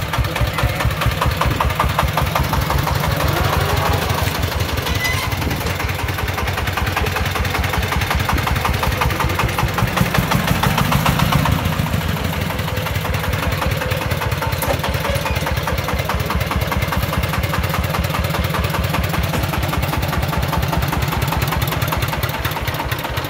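A công nông's single-cylinder diesel engine (the motor of a homemade three-wheeled farm truck) running with a steady, rapid chugging. It grows briefly louder about ten seconds in.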